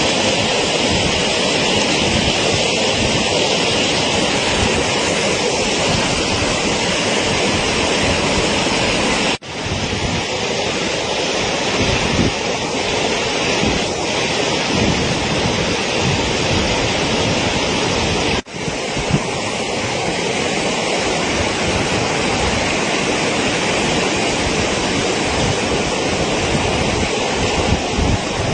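Steady loud rush of water with wind buffeting the microphone. It breaks off sharply twice, about a third and two thirds of the way through, at cuts between clips.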